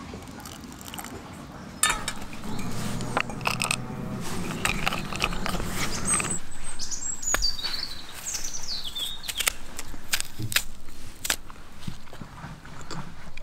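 Hot water poured from a steel pot into a steel mug, a steady rush of about four seconds that stops abruptly. Then a spoon clinks in the metal mug while a bird sings a few high chirps that fall in pitch.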